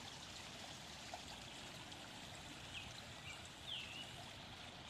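Quiet woodland ambience: a steady faint hiss, with a few short bird chirps about three seconds in, the last a falling whistle that levels off.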